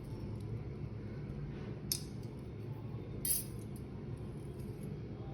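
A kitchen utensil clinks sharply against a dish twice, about two seconds in and again about three seconds in, over a steady low hum.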